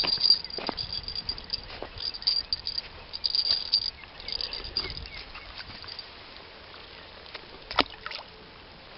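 High, thin insect-like trilling in repeated bursts of about half a second to two seconds, fading out about six seconds in, with scattered small clicks and a single sharp knock near the end.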